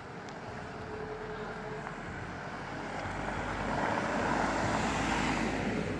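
A car driving past close by, its engine and tyre noise on the brick-paved street swelling to a peak about four to five seconds in and then fading away.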